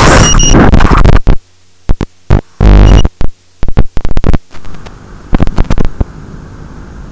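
FPV quadcopter with 3000KV motors on a 4S battery crashing through tree branches: the loud motor noise cuts out about a second in, followed by a run of short bursts of motor spin and sharp knocks as it comes down, then a low steady hiss once it lies still.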